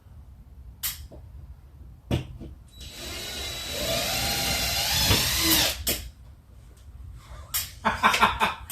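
A power drill runs for about three seconds, its whine climbing in pitch as the motor spins up, with a few sharp knocks of work on the wall before it.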